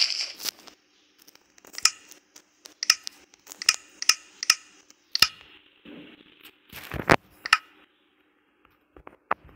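Hand tools working wood: a string of irregular sharp clicks, snips and taps, about a dozen in all, over a faint steady hum. The loudest come right at the start and about seven seconds in.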